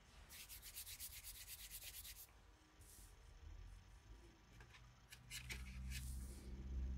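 Faint dry rubbing and scratching on a sheet of paper dusted with chalk pastel as it is handled: quick rapid strokes for about two seconds, then another short run of them near the end.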